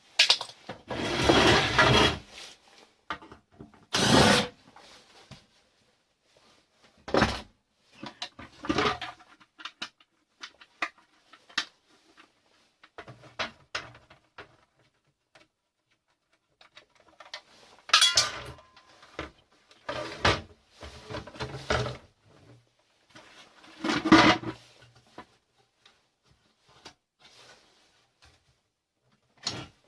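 Small metal and plastic parts of an alarm system control box clinking, clattering and knocking as the box is taken apart for scrap. The sounds come in irregular bursts with short pauses between them, the loudest a few seconds apart.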